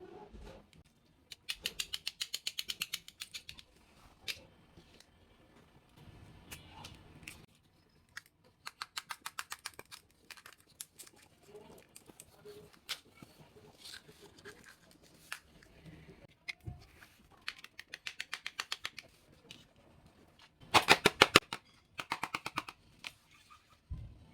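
Toy packaging being handled and opened: several runs of rapid clicking, each a second or two long, with quieter rustling and handling noise between them. The loudest run comes near the end.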